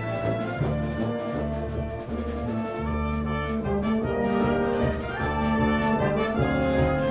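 Symphonic wind band playing live, brass to the fore: sustained chords over a pulsing bass line, growing a little louder after about five seconds.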